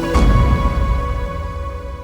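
Background music with held tones and a deep bass hit just after the start that slowly fades away.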